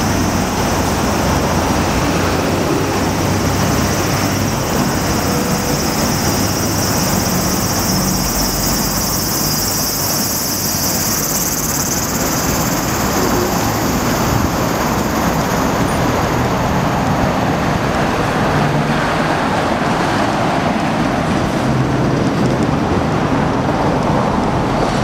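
Steady city street traffic noise: cars and taxis passing on the road beside the sidewalk, an even rush of engine and tyre sound.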